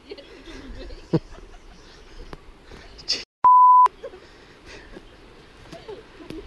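A single loud, steady beep at one pitch, about half a second long, a little past the middle, with the sound cut out just before it: a censor bleep laid over a word. A sharp click about a second in, and faint background murmur.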